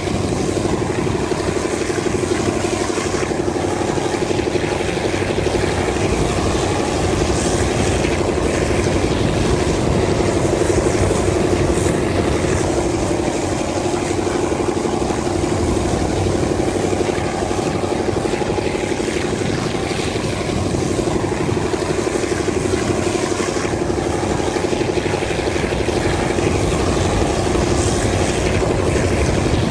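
TCDD DE 24000 diesel-electric locomotive's engine running with a steady drone under power, heard from a coach further back in the train along with the rush of the moving train.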